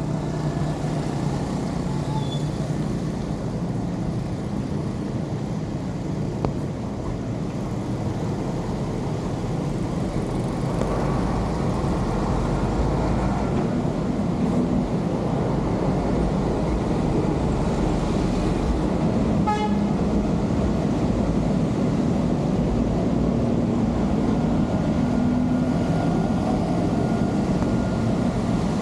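Muddy rainwater draining through a cleared culvert, a steady rushing noise, with rain falling on the flooded road.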